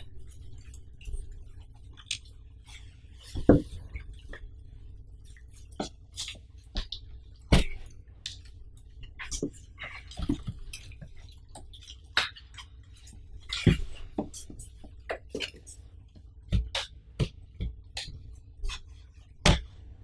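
Cardboard TV box and its plastic-wrapped packing pieces being handled: scattered scrapes, taps and crinkles as pieces are pulled out and the box is tipped, with a few sharper knocks of cardboard.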